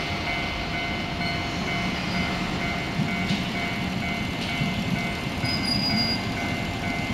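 Japanese level-crossing warning bell ringing steadily at about two strikes a second, over the low rumble of a Tokyo Metro Ginza Line 01 series train on the third-rail track.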